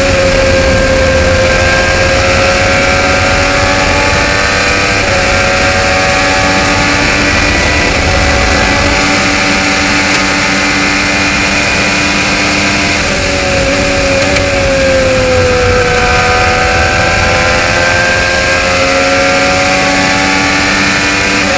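IndyCar's Chevrolet 2.2-litre twin-turbo V6 heard from onboard, running at high, nearly steady revs flat out around the oval. Its pitch sags a little past the middle and then climbs back.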